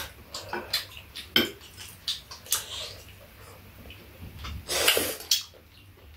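Mealtime eating sounds: chopsticks and spoons tapping against ceramic bowls, with slurping and chewing of seafood stew noodles and squid. A louder half-second burst of noise comes about five seconds in.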